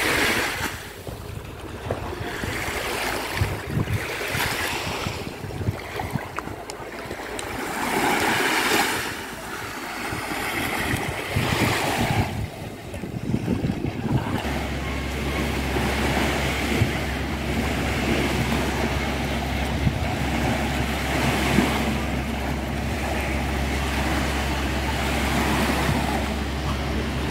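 Small waves washing in on a sandy beach, swelling and fading every couple of seconds. From about halfway through, wind on the microphone adds a steady low rumble.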